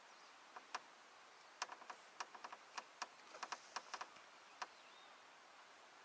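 A quick, irregular run of faint, sharp clicks, about a dozen and a half, most of them bunched between one and four seconds in, over a low steady hiss.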